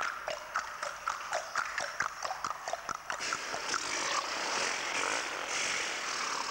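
A fast, even run of sharp clicking knocks, about four a second, each with a short ring, stopping about three seconds in; then an uneven hissing, rustling noise.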